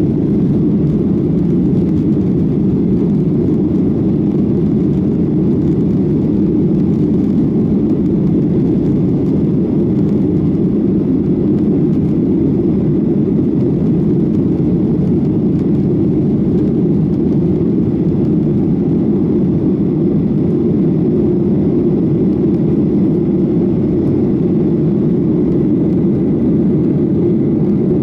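Boeing 737-800 with CFM56-7B jet engines, a steady low rushing noise of engines and airflow that holds an even level throughout.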